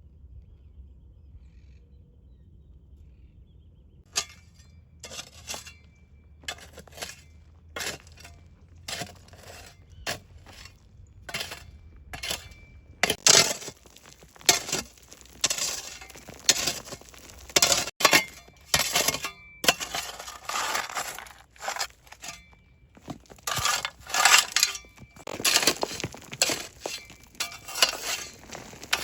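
Kitchen utensils clinking and scraping against dishes and pans in irregular strokes, sparse at first and busier and louder in the second half.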